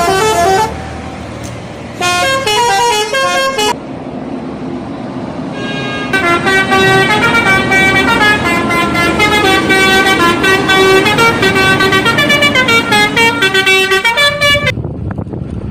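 Indonesian bus telolet horn playing melodic runs of stepped musical tones. There is a short run at the start, another about two seconds in, then a long tune lasting about nine seconds that cuts off suddenly near the end, over a low engine and traffic rumble.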